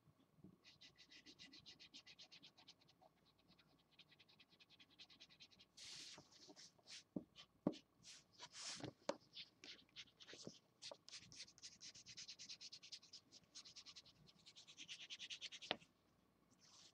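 Felt-tip marker scratching across paper in quick, short back-and-forth strokes, about eight a second, faint and even. A stretch of scattered ticks and a few louder taps in the middle breaks up the runs, and the scratching stops near the end.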